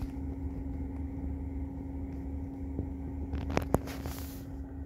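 Steady hum of a Tesla Model 3's climate system running in the cabin, a constant low drone with one steady tone above it. A short rustle and two sharp clicks come a little past three seconds in.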